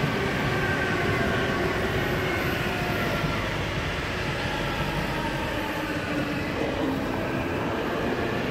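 Two Renfe class 446 electric multiple units crossing on adjacent tracks. There is steady running noise of wheels on rail, with a whine over it that wanders in pitch.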